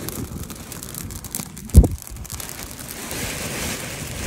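Wind buffeting the phone's microphone, with a single loud low thump a little under two seconds in and a rising hiss near the end.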